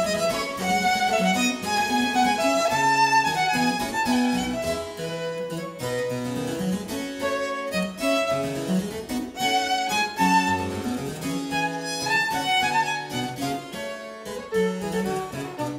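Baroque violin and harpsichord playing a fast baroque sonata movement in D minor together: the violin plays quick running lines over the harpsichord's plucked accompaniment.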